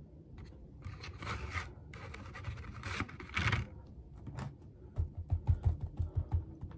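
Scratching and rustling of hands handling food and wrappings on a tray, then a quick run of soft, low thumps as a knife saws into a long bread roll.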